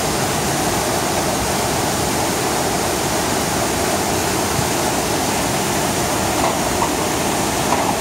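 Strongly flowing water of the Düden River rushing down its cascade over rocks: a loud, steady, unbroken rush.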